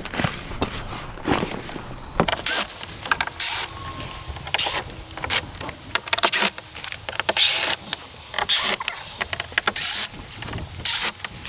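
Canvas rustling and scraping as its edge bead is pulled out of the tip-out's metal channel, in short irregular bursts with faint squeaks.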